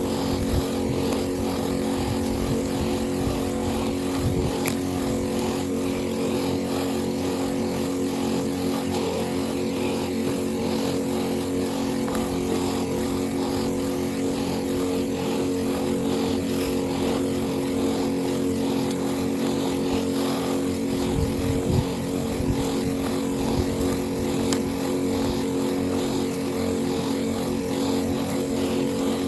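Small petrol engine of a motorized weed-killer sprayer running at a steady speed while spraying.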